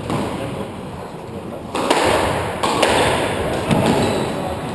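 Squash ball being served and rallied: a series of sharp smacks of racket on ball and ball on the walls, starting under two seconds in, each ringing on in the enclosed court.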